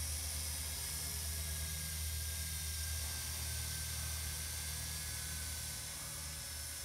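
RISE Archon quadcopter drone flying overhead, its four motors and propellers giving a steady whirring hiss with a low hum underneath, growing slightly fainter near the end as it drifts away.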